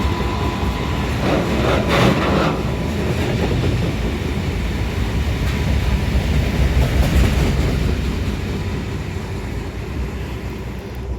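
A train passing close by: a loud, steady rumble of wheels on rail that eases off near the end as it moves away.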